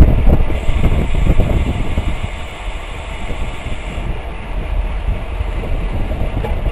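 Wind rushing over a bike-mounted camera's microphone at about 28 mph, with the rumble of the bicycle's tyres on the pavement. It is loud at first and eases a little about two seconds in.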